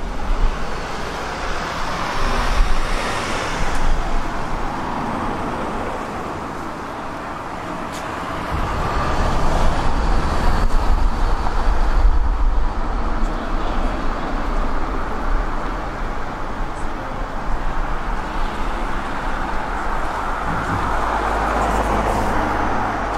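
Road traffic: cars passing along a street, a steady rumble of engines and tyres that swells as vehicles go by, once about a third of the way in and again near the end.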